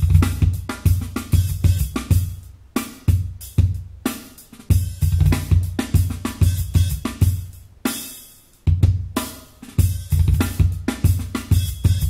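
Jazz-fusion duet for drum kit and bass, played back through Neumann KH 120-II studio monitors. A busy drum groove of snare, hi-hat, cymbals and kick drum runs over deep bass notes. The bass drops out briefly about four seconds in, and again about eight seconds in.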